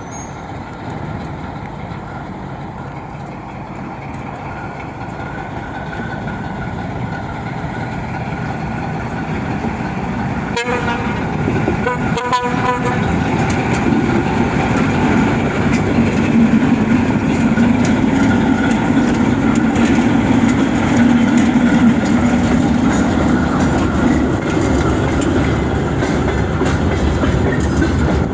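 ChME3 diesel shunting locomotive with a freight train, its diesel engine growing steadily louder as it approaches. It gives two short horn toots about ten and twelve seconds in, and the wheels clatter on the rails.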